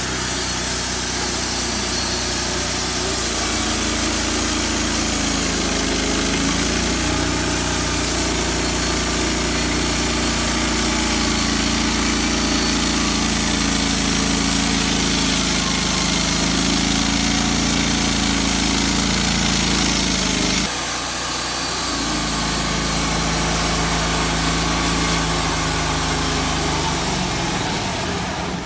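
Wood-Mizer band sawmill running steadily, its engine note under a wide hiss. The engine note shifts abruptly about 20 seconds in.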